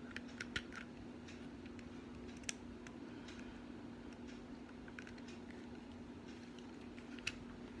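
Faint small clicks and taps of pistol parts being handled as the trigger housing pin is fitted into a Glock 17 Gen 4 frame: a few about half a second in, one near the middle and one near the end, over a steady low hum.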